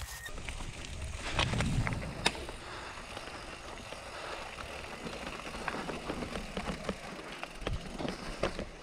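Canyon Neuron CF9 full-suspension mountain bike rolling down a wet, leaf-covered, stony trail. The tyres hiss and crunch over leaves and rocks, with scattered knocks and rattles from the bike. There is a louder low rumble about a second and a half in and a sharp knock just after two seconds.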